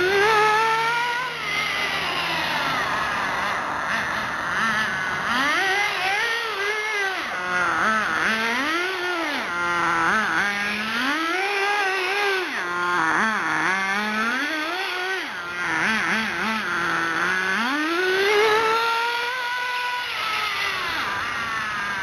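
Ported .18 two-stroke nitro engine of an RC buggy, revving up and dropping back over and over as the buggy accelerates and slows. Its pitch climbs and falls every two to three seconds, with longer climbs near the start and near the end.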